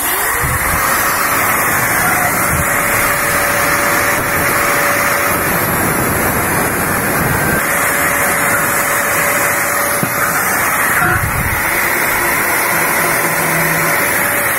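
Handheld electric angle grinder spinning up, then grinding the edge of an oblong slot in a steel plate: a steady whine over a gritty rasp. The slot had been cut slightly undersize and is being ground straight. The motor starts winding down right at the end.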